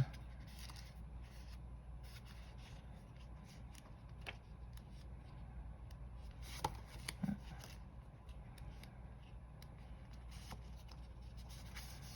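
Faint paper rustling and a few light taps as the pages of a small tarot guidebook are leafed through to find an entry.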